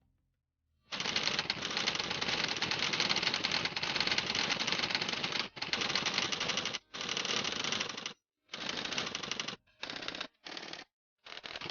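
Split-flap display paddles flipping in a rapid clatter, starting about a second in. One long run is followed by several shorter runs with brief stops between them.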